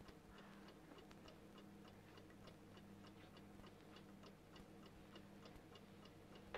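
Faint, even ticking like a clock's, about four ticks a second, over a low steady hum.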